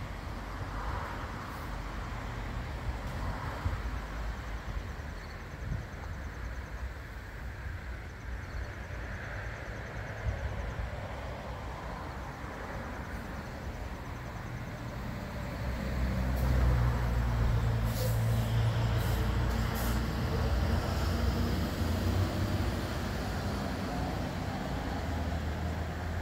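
Outdoor background noise: a steady low rumble that grows louder about two-thirds of the way through, with a few faint clicks.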